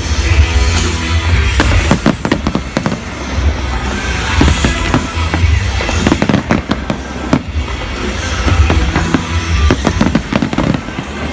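Fireworks bursting and crackling in quick succession, dozens of sharp bangs, over loud music with a heavy bass.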